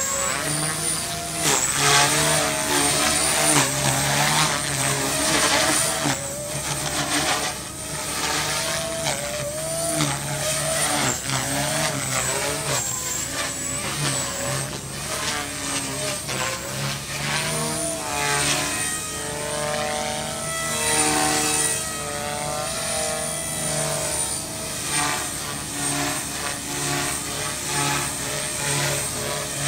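Align T-Rex 250 electric micro RC helicopter in aerobatic flight: a steady high whine from its electric motor and gears over the whir of the rotor blades, the pitch and loudness swinging up and down as the blades load and unload through the manoeuvres.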